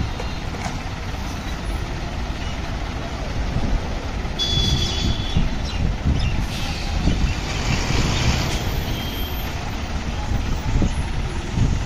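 Heavy vehicle engines running with a steady low rumble. About four seconds in comes a short high-pitched tone lasting about a second. A hiss follows for a couple of seconds.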